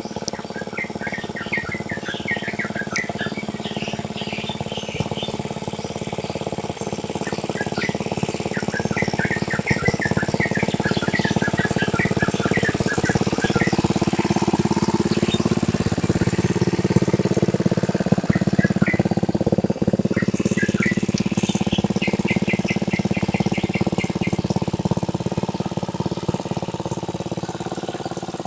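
A ploughing tractor's engine runs steadily in a rice paddy, a little louder through the middle. Birds chirp over it in several short bouts.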